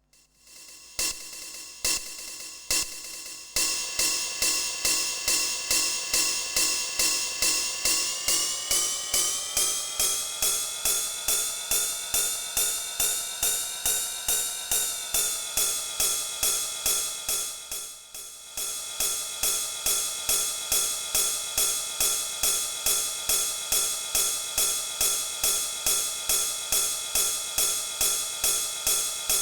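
TR-909 clone drum machine playing a four-on-the-floor pattern with hi-hats and cymbals. It restarts with a few sparse hits, then settles into a steady beat of about two a second. The pitch of the ringing metallic tones rises about 8 seconds in and falls back a few seconds later.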